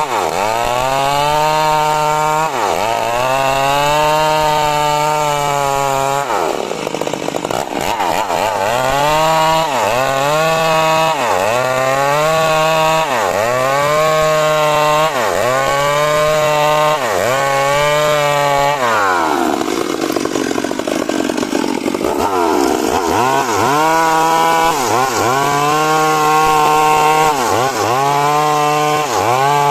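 Chainsaw cutting through coconut-palm wood at high revs, its engine note dipping under load and recovering again and again, roughly every one to two seconds. Twice the sound turns rougher and noisier for a couple of seconds.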